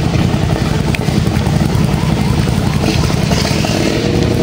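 ATV engine running hard under load, a steady low rumble, as the quad is pushed and driven up out of a dirt pit. A higher steady engine note joins about three seconds in.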